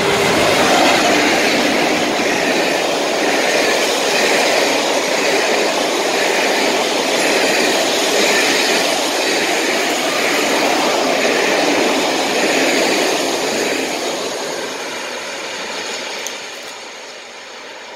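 Loco-hauled passenger train of coaches passing close at speed: a loud rumble and rail noise with a regular beat as each coach's wheels go by. It fades steadily from about three-quarters of the way through as the train draws away.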